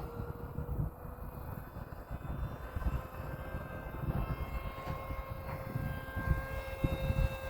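Ford Bronco running with a steady, high whine that rises slightly in pitch, over a low, uneven rumble: the truck's odd running noise.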